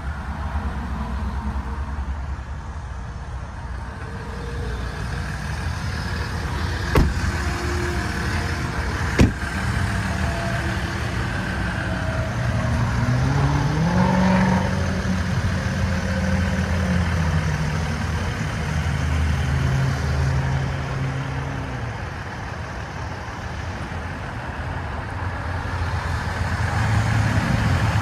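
The Ram 1500 EcoDiesel's 3.0-litre V6 turbodiesel running at idle, a steady low drone. Its pitch rises and later falls back around the middle. Two sharp knocks come a couple of seconds apart before that.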